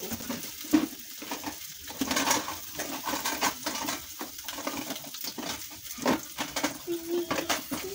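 Two hot dog sausages frying in hot oil in a frying pan, with irregular crackles and pops of spattering oil over a sizzle.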